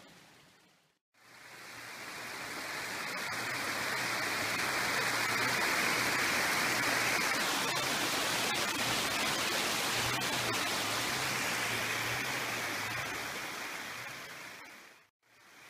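Steady rush of running water over rocks, with the low hum of a Toyota FJ Cruiser's engine underneath. The sound fades in about a second in and fades out near the end.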